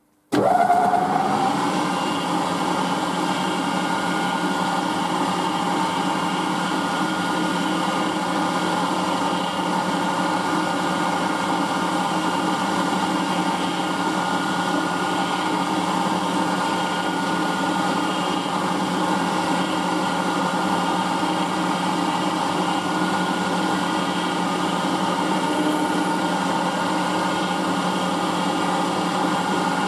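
Milling machine switched on about half a second in, starting abruptly and settling into a steady motor and spindle run while the end mill cuts a shallow V groove into a square steel block.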